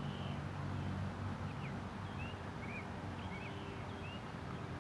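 Small birds chirping faintly, short high chirps about every half second, over a low steady hum.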